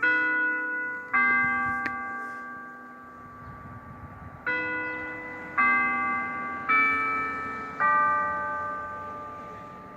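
Church bells struck one at a time, each stroke at a different pitch and ringing out as it fades. Two strokes about a second apart, a pause of about three seconds, then four more at about one-second intervals.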